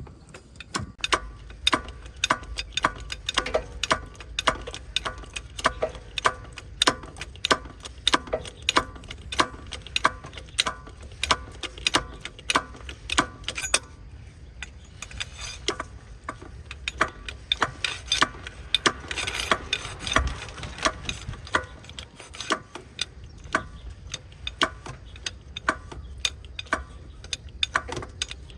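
A long run of sharp metallic clicks and taps from hand-tool work, about two to three a second. They thin out for a couple of seconds around the middle, then pick up again.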